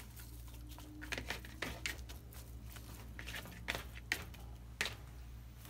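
Raw sliced beef squelching and slapping wetly as bare hands toss it in marinade in a bowl, a few short irregular squishes. A steady low hum runs underneath.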